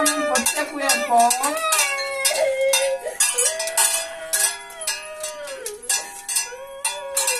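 Bells clanging and jangling over and over, as shaken by a čert (Czech St Nicholas' Eve devil) in a costume hung with a chain, over long drawn-out voice sounds.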